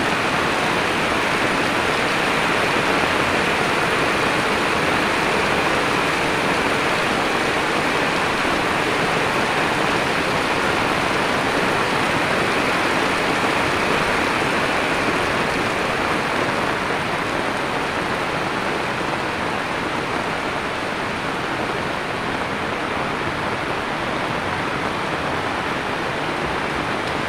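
Heavy rain pouring steadily onto a paved road, a dense even hiss that eases slightly a little past halfway through.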